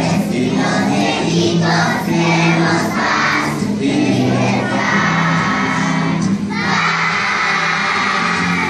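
A group of young schoolchildren singing together over steady music, growing louder and more sustained about two-thirds of the way through.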